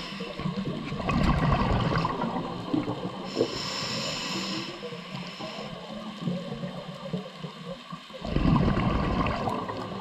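Scuba diver breathing through a regulator underwater: a burst of exhaled bubbles about a second in, a hissing inhalation through the regulator a little after three seconds, then another loud burst of exhaled bubbles near the end.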